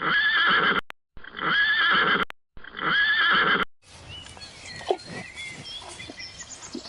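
A horse whinnying, the same call heard three times in quick succession with abrupt cuts between them. After that comes a quieter outdoor background with faint bird chirps and a single knock.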